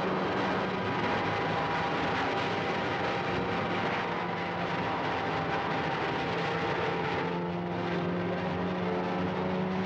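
Steady drone of an aircraft engine, with a continuous rushing noise over it: a film sound effect for flight.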